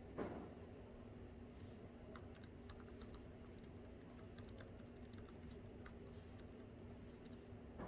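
Typing on a laptop keyboard: soft, irregular key clicks that start about a second and a half in, over a steady low hum. A single louder knock comes just after the start.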